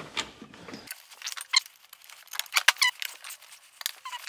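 Hands handling a power box, its cables and a plastic mounting plate: scattered small clicks and knocks with a few short squeaks.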